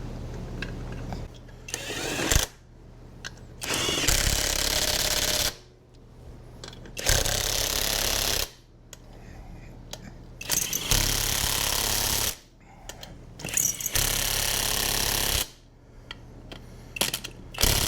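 A power tool run in four bursts of about a second and a half each, with a short blip before the first and after the last, as fasteners are driven during reassembly of an ATV's suspension.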